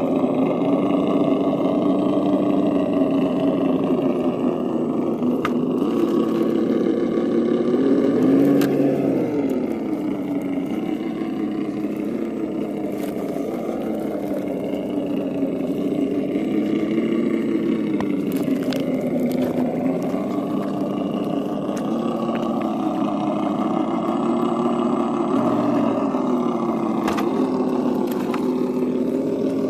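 Simulated truck engine sound from an ESS-One sound module in an Axial SCX10 II Trail Honcho RC crawler, its pitch rising and falling with the throttle as the truck crawls over rocks, with the biggest rev about a third of the way in. A few sharp clicks sound over it.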